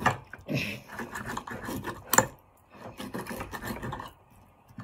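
A knife sawing through meat on a plate in rasping strokes, in two runs with a short pause between them. There is one sharp clink of the utensil on the plate about two seconds in.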